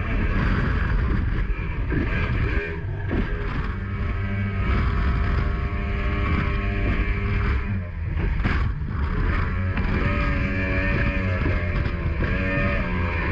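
Mercury 2.0-litre V6 two-stroke outboard running hard at high speed, about 90–100 km/h, with the engine note shifting in pitch near the end. A few short thumps come through, around three seconds in and again past eight seconds.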